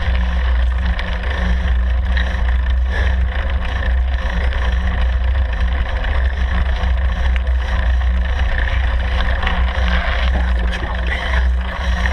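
Wind buffeting the microphone of a camera on a vehicle moving at speed along a road: a steady, loud, low rumble, with road and vehicle noise above it.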